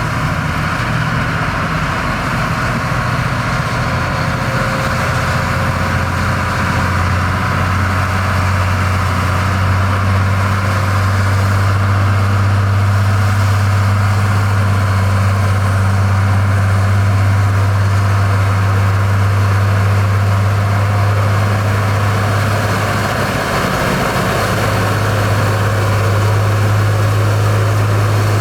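Heavy diesel engine of construction machinery running steadily with a deep, even hum, dipping briefly about three quarters of the way through and then carrying on.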